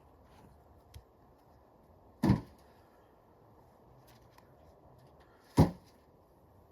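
Two sharp, heavy knocks about three seconds apart, with a faint click about a second in; no chainsaw running.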